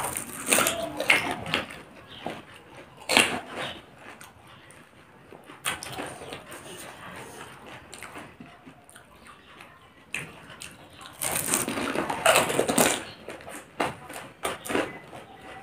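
Crisp panipuri shells crunching and being chewed with wet mouth noises, in short bursts separated by quieter stretches, the loudest run about two-thirds of the way through.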